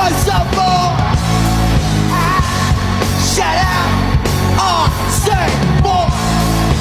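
A song playing: a voice singing over a rock-style backing with a steady beat.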